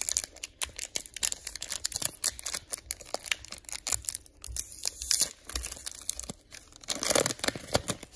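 Foil wrapper of a Pokémon trading-card booster pack being torn open and crinkled by hand, a run of sharp crackles, loudest near the end as the cards are pulled out.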